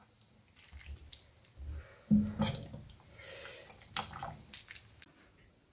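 Stew being ladled from a stainless steel pot into a bowl: liquid splashing and dripping, with sharp knocks of the metal ladle against the pot about two seconds in and again about four seconds in.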